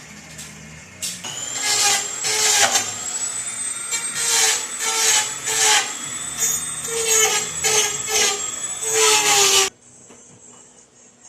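Angle grinder with a cut-off wheel cutting into a car hood in repeated short passes, a high steady whine with loud surges each time the wheel bites. It starts about a second in and cuts off sharply near the end.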